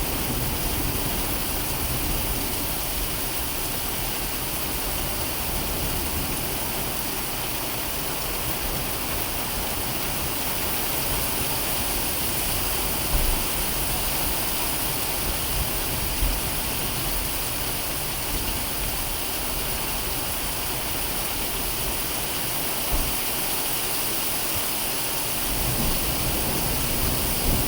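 Steady, heavy rain pouring down during a thunderstorm. A low rumble of thunder begins to build near the end.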